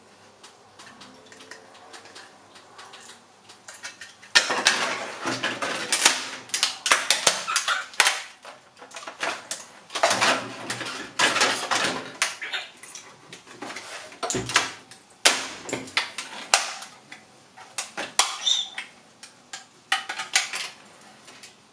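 Thin 3D-printed PLA wing shell being bent and broken apart by hand: repeated sharp cracks and crunching of the brittle plastic in clusters, starting about four seconds in.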